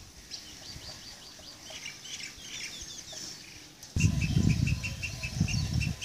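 Birds chirping and twittering in an aviary. About four seconds in, a rapid, even run of short high calls starts, about five a second, over a low rumbling noise.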